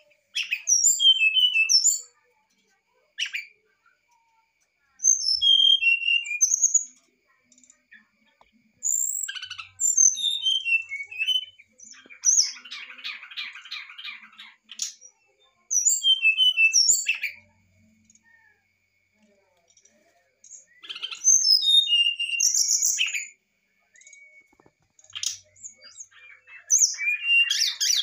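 Brown-chested jungle flycatcher singing short phrases of clear, varied whistled notes, with pauses between them. A harsh rattling call comes about halfway through, and a harsh chatter starts near the end.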